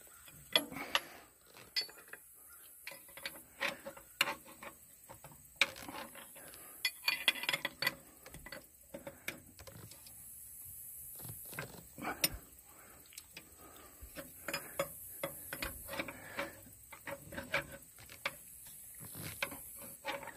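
Hand tools and metal parts clicking and clinking while a new fuel primer pump is fitted on an excavator's fuel line: irregular sharp clicks and knocks, with a quick run of them around seven seconds in.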